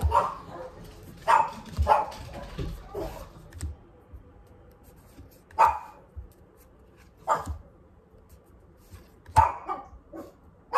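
Pet dog barking repeatedly, single sharp barks one to two seconds apart, with a pause of about two seconds partway through.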